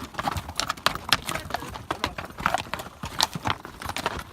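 Footsteps on a rocky trail: a quick, uneven series of sharp scuffs and clicks of boots striking stone and gravel while hiking uphill.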